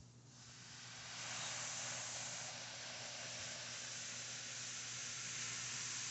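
Battery acid fizzing and hissing as baking soda reacts with it, foaming up while the acid is neutralised. The hiss swells over about the first second, then holds steady.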